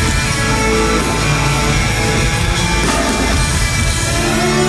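Live rock music led by a Stratocaster-style electric guitar played through an amplifier, with a band behind it.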